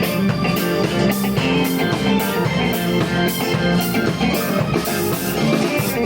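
A live rock band playing an instrumental passage: guitar over a drum kit with a steady beat and no singing.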